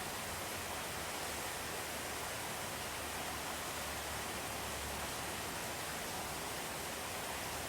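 Steady rain heard from indoors: an even, unbroken hiss with no thunder strikes.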